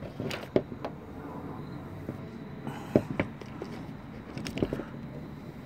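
A few faint, scattered clicks and knocks from a homemade carburetor pressure-test rig being handled while its football hand pump is worked.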